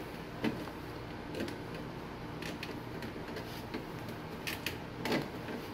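Light, scattered plastic clicks and ticks as a hand fits a transparent plastic P-trap and threads its plastic slip nut loosely onto the drain pipe.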